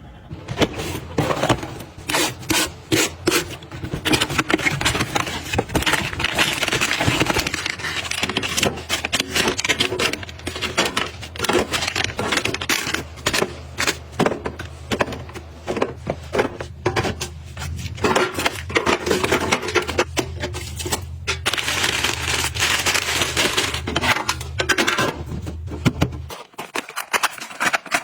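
Close-up handling of items being restocked and organized: many small clicks, taps and rubbing of packaging and containers being picked up and set down. A steady low hum runs underneath and stops near the end.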